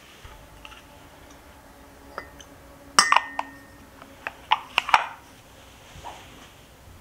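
Ceramic pour-over coffee dripper clinking against a ceramic mug and its stand as it is lifted off and set down: one sharp clink with a short ring about three seconds in, then a quick run of lighter clinks a second or so later.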